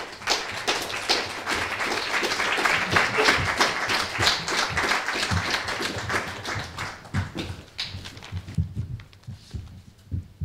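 Audience applauding. The clapping starts at once, is fullest over the first few seconds and dies away over the last few, with a few low knocks as it fades.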